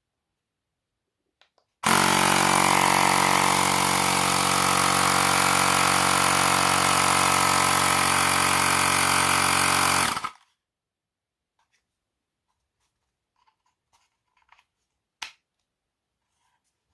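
Xiaomi Mi Portable Air Compressor 1S's small electric pump switching on abruptly, running steadily and loudly for about eight seconds, then cutting off sharply. A few faint clicks follow, with one sharper click near the end.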